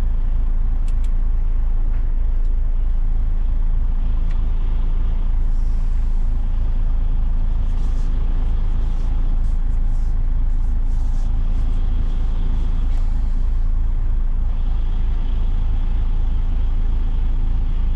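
Diesel engine of an articulated HGV tractor unit running steadily at low revs in crawler gear while the lorry creeps at the start of a reversing manoeuvre, heard from inside the cab. A few light clicks and short hisses come in around the middle.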